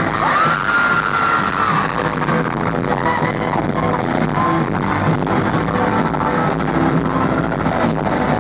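Loud electronic-style music over a stadium sound system, with a tone that rises and holds for a moment near the start.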